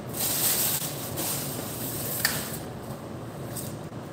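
Water running from a kitchen tap into a steel sink, with a single light clink about two seconds in.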